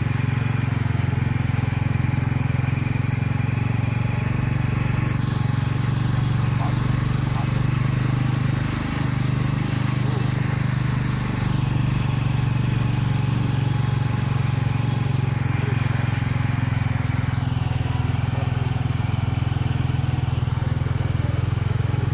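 A motor vehicle's engine running steadily, a constant low drone.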